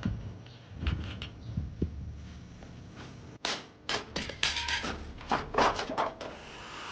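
A few dull knocks, then a quick, uneven run of sharp metal clanks and rattles from the aluminum storm door being pulled apart by hand and with tools. The clanking stops near the end, leaving a steady hiss.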